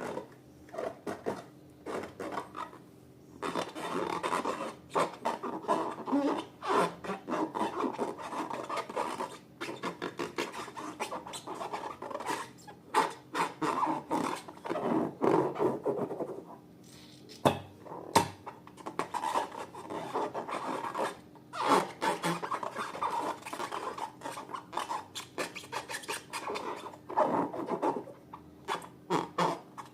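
Slime being handled and worked by hand: dense runs of short crackles and clicks with brief pauses, and two sharper clicks a little past halfway.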